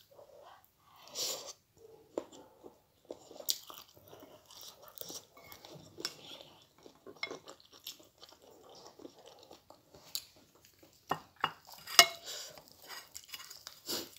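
A person chewing and crunching mouthfuls of broccoli and noodles close to the microphone, with many small irregular clicks and a sharp click about twelve seconds in.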